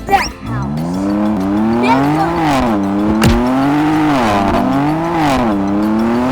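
Monster truck engine revving up and down in about four smooth waves.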